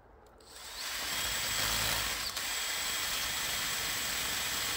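Cordless drill driving a drill-mounted chainsaw attachment, starting up in the first second and then running steadily with a faint high whine.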